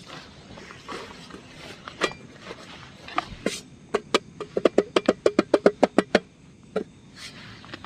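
Hand knocks on a wooden cutting board: scattered knocks, then a quick even run of about a dozen taps near the middle, about seven a second, and one last knock.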